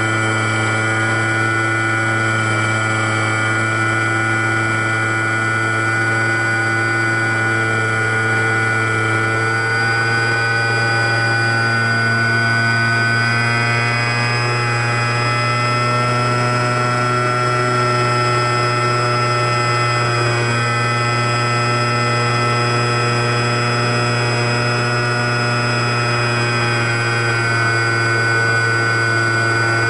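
Electric motor and propeller of an RC Sbach 342 aerobatic model in flight, heard from inside its canopy: a steady whine over a deep propeller hum, its pitch drifting slowly up and down.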